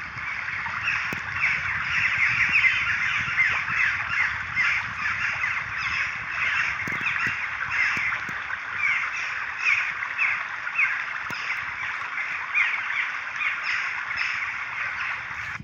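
A flock of birds calling continuously, many short calls sliding down in pitch and overlapping, several to the second, then cutting off suddenly.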